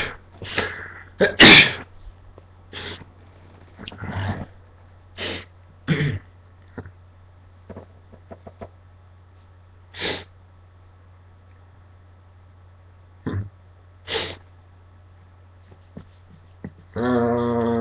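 A man sneezes loudly about a second and a half in, the sneeze brought on by tickling inside his nose with a Q-tip. A string of shorter, quieter bursts of breath follows over the next several seconds.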